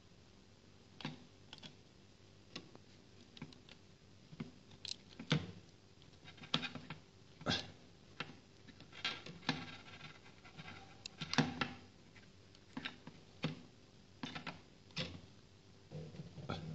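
Irregular clicks and light knocks of handling: a USB cable, a plastic USB power meter and a power bank being picked up, plugged together and set down on a wooden chair seat.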